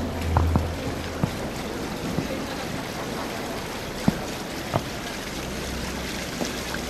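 Steady background noise of a large exhibition hall, with a faint low hum and a few scattered faint clicks.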